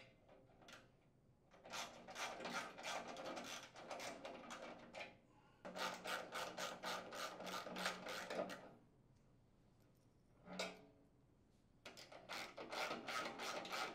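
Socket ratchet clicking rapidly in three long runs, with a short burst in between, as a half-inch socket backs out a mounting screw whose nut is held with needle-nose pliers.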